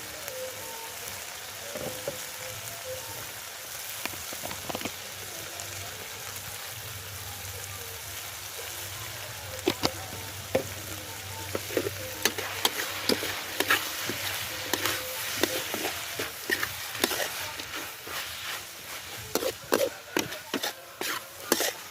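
Frogs frying in hot oil with a steady sizzle. From about halfway through, a utensil knocks and scrapes against the pan again and again as they are stirred.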